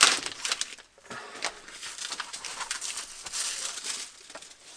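Clear plastic packaging crinkling and rustling as a fabric fender cover is pulled out of its bag. There is a sharp rustle right at the start, then irregular crackling.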